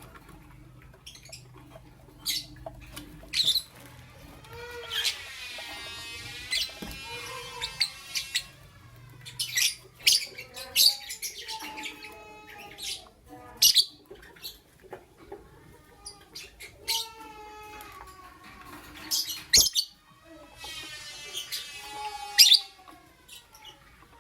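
Lovebirds chirping: short, shrill chirps scattered throughout, with longer chattering calls that bend in pitch about five seconds in and again near the end.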